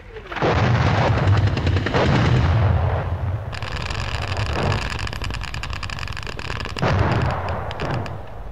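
Battle sounds of rapid gunfire over a heavy rumble of explosions, starting loud about half a second in and surging again about seven seconds in.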